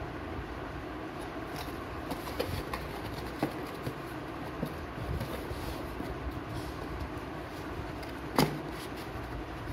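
Corrugated cardboard box being handled: a few small taps and clicks, then one sharper knock about eight seconds in, over a steady low background rumble.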